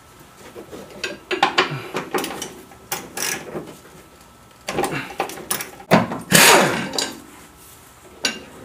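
Hand-tool work on small bolts: scattered clicks and metal clinks from a ratchet loosening the 10 mm fasteners of a car's plastic fender liner, with a louder brief rustle a little past six seconds in.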